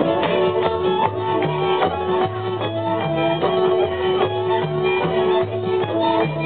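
Live Hungarian folk string band playing Méhkerék dance music: a lead fiddle plays the melody over kontra chords and a pulsing double-bass line.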